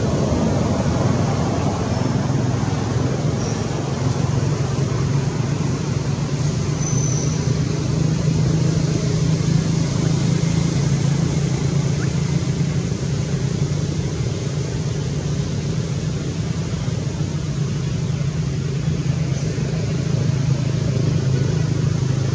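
A steady low motor hum with an even hiss over it, unchanging throughout, with a few faint short high chirps above it.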